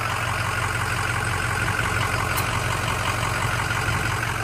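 2005 Ford F-350's 6.0 L Power Stroke V8 turbo-diesel idling steadily, a low even hum with a fast diesel rattle over it.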